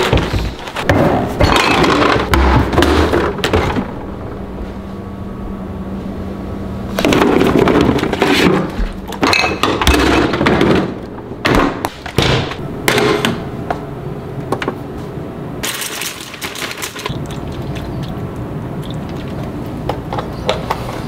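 Breakfast cereal being handled and served: a raisin bran box and its plastic inner bag crinkling, and dry flakes rattling as they are poured into a bowl, in several loud bursts with quieter handling and a refrigerator being opened in between.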